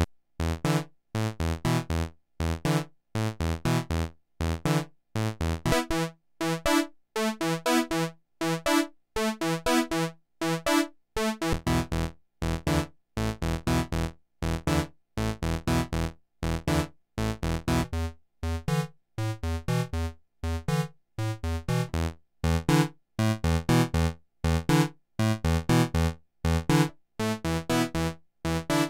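Fred's Lab Zekit synthesizer playing a sequenced pattern of short staccato notes, about three a second with silence between, on its paraphonic waveforms. The tone colour changes every few seconds as a new waveform is selected.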